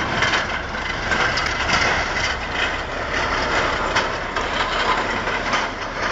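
Heavy vehicle engine running in a noisy, steady rumble, with a few sharp knocks or clanks about a second and a half in, just after, and again about four seconds in.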